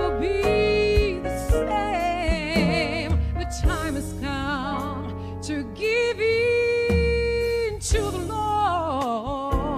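A woman singing a gospel song into a microphone over instrumental accompaniment with bass and drum beats, her voice wavering with vibrato and holding long notes, the longest about six seconds in.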